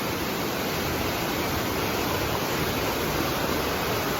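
Waterfall's falling water: a steady, even rush of white noise that doesn't change.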